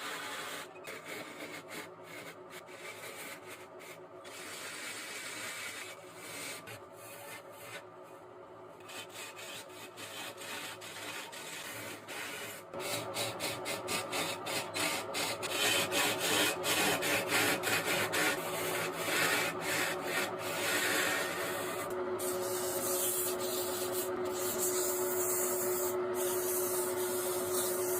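A wood lathe turning a bed leg while a turning tool cuts the spinning wood, making a scraping, rasping sound with many short breaks. It gets louder about halfway in, and a steady hum joins near the end.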